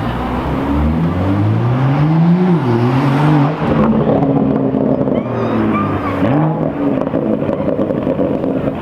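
BMW M2 F87's turbocharged inline-six through its performance exhaust, revving. The pitch climbs for about two seconds, drops sharply, rises and falls again, dips once more past the middle, then holds a steadier note.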